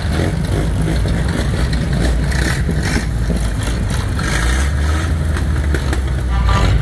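Motor vehicle engine running slowly with a steady low rumble, which grows into a deeper, steadier hum about four seconds in.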